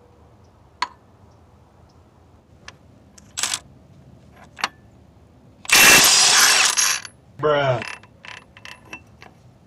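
Milwaukee M12 half-inch stubby impact wrench hammering for about a second and a half on the 32 mm crankshaft damper bolt of a Jeep 5.2L V8, breaking the bolt loose and backing it out. A brief burst from the wrench comes a couple of seconds earlier, with a few light clicks of the tool and socket around it.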